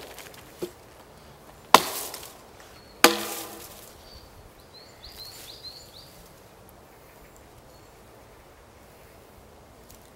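Axe chopping a branch on the ground: a light knock, then two sharp chops about a second and a half apart, the second ringing briefly.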